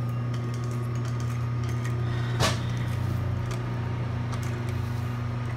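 Sewing machine motor running with a steady hum while the needle is stopped, with a sharp click about two and a half seconds in as the fabric is handled and drawn out from under the presser foot.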